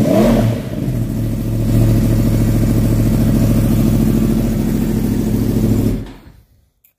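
2022 Yamaha R1's crossplane inline-four running through an M4 mid-pipe into the stock muffler, with the catalytic muffler box removed. It gives a quick rev near the start, then holds a steady raised engine speed from about two seconds in, and stops about six seconds in.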